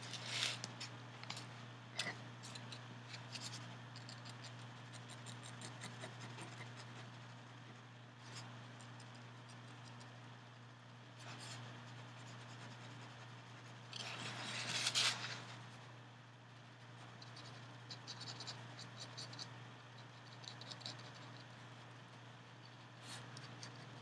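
Ink pen scratching across a paper card in short, uneven strokes as small clouds are outlined and shaded in. A little past halfway comes one longer, louder scratch, followed by a run of quick little strokes.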